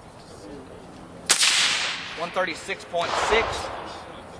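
A single suppressed gunshot about a second in: a sharp crack with a long fading echo. A sound meter reads it at about 136.6 dB.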